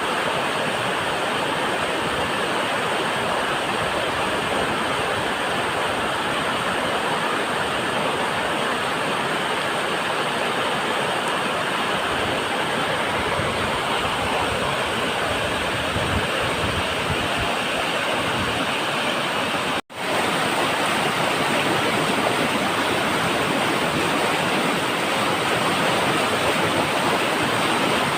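Waterfall rushing steadily, a dense even roar of falling water. The sound breaks off for an instant about twenty seconds in, then carries on.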